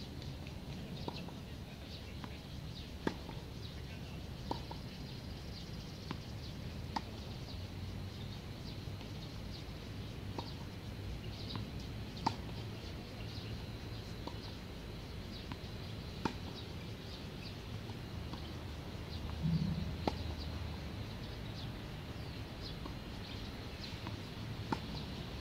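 Tennis balls struck by a racket and bouncing on a hard court: single sharp pops every few seconds, the loudest about halfway through. Birds chirp faintly throughout over a steady low hum.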